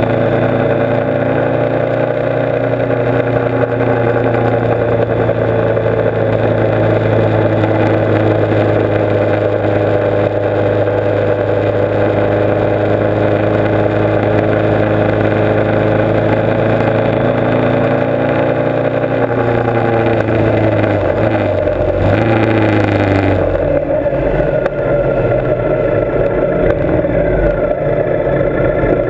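Motorcycle engine running at a steady cruising speed under wind and road noise. About twenty seconds in the engine note falls as the bike slows. A few seconds later the wind noise drops away, leaving the engine running slowly.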